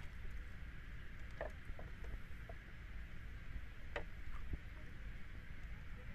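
A few short knocks and small splashes as a freshly caught fish flaps in a plastic bucket with a little water in it, the sharpest about four seconds in, over a steady low rumble.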